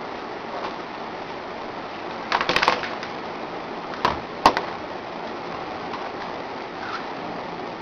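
Steady background hiss, broken by a quick run of about six small clicks about two and a half seconds in and two sharper clicks about four seconds in, the last the loudest.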